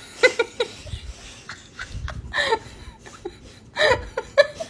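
Short bursts of laughter, three times: near the start, midway, and near the end.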